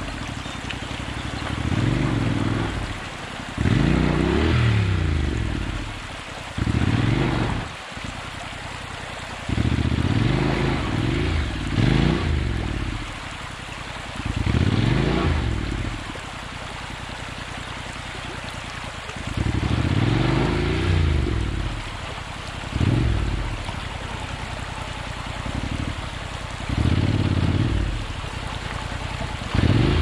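Honda NC750X parallel-twin engine revved in about a dozen short bursts, its pitch rising and falling with each blip, over the steady rush of a shallow stream.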